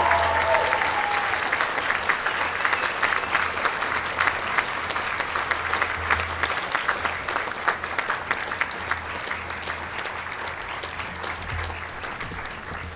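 Large crowd giving a standing ovation: many hands clapping together, loudest at first and slowly thinning out and fading.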